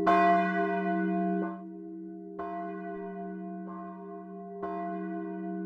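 Church bell tolling: three loud strokes a little over two seconds apart, with softer strokes between them, each ringing on over a steady low hum.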